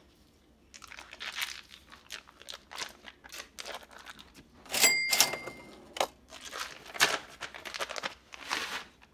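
Foil wrapper of a cream cheese brick crinkling and tearing as it is peeled open and the cheese is pushed out with a knife. About five seconds in comes a short ringing cash-register ding, the loudest sound.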